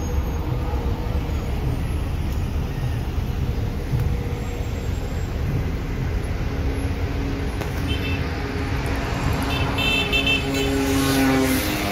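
Road traffic: a steady low rumble of car engines and tyres, with a few short car-horn toots about eight and about ten seconds in.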